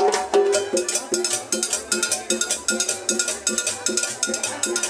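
Live band with accordion, upright bass and drums playing dance music. A quick, even beat of sharp percussion strikes rides over the held notes.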